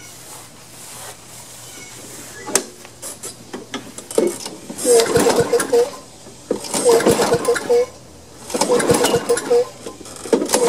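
Tecumseh mower engine turned over by its recoil pull-starter, three pulls about two seconds apart and a fourth near the end; each is a short whirring rattle with quick ticks as the engine spins through compression. It never fires: the ignition gives no spark.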